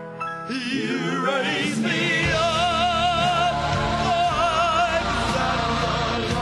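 Male singer holding long sung notes with strong vibrato over a backing track; a deeper, fuller accompaniment comes in about two seconds in.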